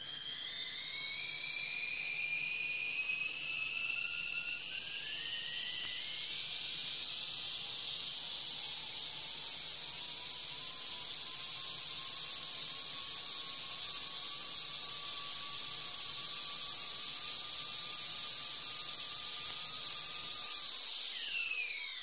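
Stovetop whistling kettle at the boil, with a hiss of steam. The loud whistle of several high notes at once rises in pitch and swells over the first few seconds, then holds steady, and near the end it falls sharply in pitch and dies away.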